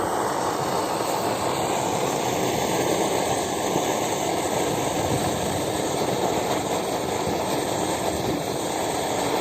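BRS-8 liquid-fuel camping stove burning at full output, a steady rushing noise from the burner, with wind buffeting the microphone.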